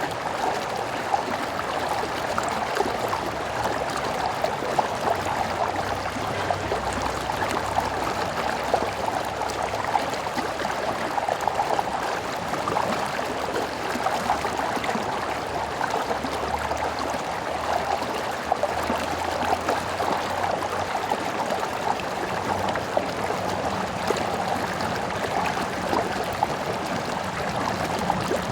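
Stream running steadily, an even rush of water flecked with small splashes and trickles.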